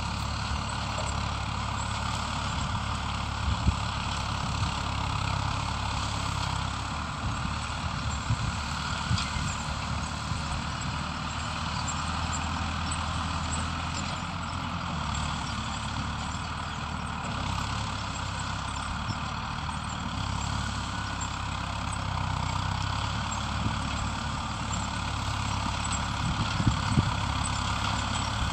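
Diesel engine of farm machinery running steadily, with a few brief knocks.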